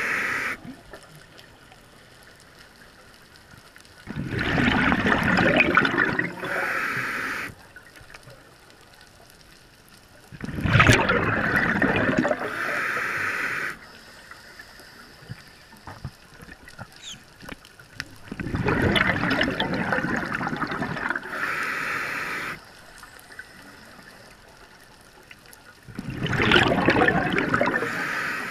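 Scuba diver breathing through a regulator underwater: four breaths about seven seconds apart, each a rush of bubbling noise ending in a short hiss, with quiet gaps between.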